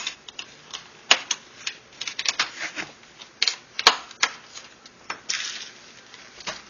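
Plastic snap clips of a Toshiba Satellite C655D laptop's screen bezel popping loose as the bezel is pried off with a small flat screwdriver: an irregular run of sharp clicks and snaps, with a short scrape of plastic about five seconds in.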